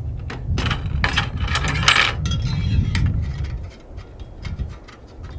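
Metal rotisserie skewers clinking and scraping as they are fitted and locked into the spit's skewer holder. The handling is busiest about a second in, and a few lighter clicks follow.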